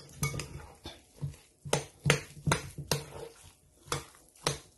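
A utensil knocking repeatedly against a bowl while crushed potato and cooked vegetables are mixed, about nine sharp taps at roughly two a second.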